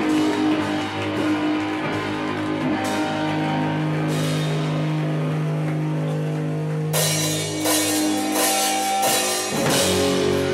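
Punk rock band playing live on drums, electric guitar and bass: long held guitar and bass notes ring out for about seven seconds, then the drum kit comes in with rapid cymbal and snare hits and the whole band plays together.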